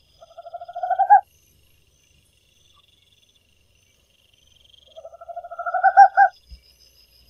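Great horned owl calling: two fast pulsed calls of about a second each, one near the start and one about five seconds in, each growing louder and stopping sharply.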